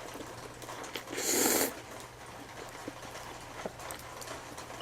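One short, loud breathy rush from the person eating spicy noodles, about a second in. Faint mouth clicks follow over a steady low hum.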